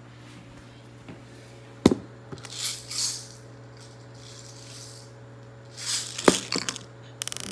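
Handling noise as a phone camera and a plastic airsoft pistol are moved and set down on a table: a sharp knock about two seconds in, rustling, another knock about six seconds in, and a quick rattle of clicks near the end, over a steady low hum.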